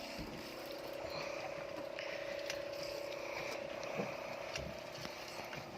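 A steady machine hum holding one constant pitch, with a few faint knocks about four seconds in.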